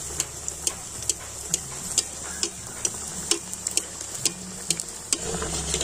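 Stuffed dough parcel deep-frying in hot vegetable oil in a wok: a steady sizzle with irregular crackling pops.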